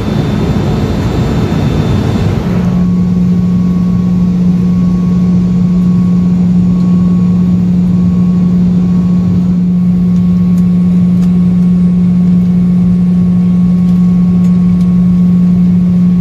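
Cabin noise in a Boeing 717 in descent: the steady drone of its tail-mounted Rolls-Royce BR715 turbofans with a strong, even low hum. The sound changes abruptly about two and a half seconds in, then holds steady.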